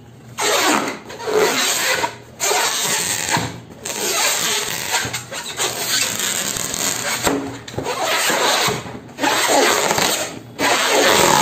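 Hand rubbing and squeezing along an inflated long latex balloon, a noisy squeaky rubbing of the latex in long strokes with several short breaks; no pop.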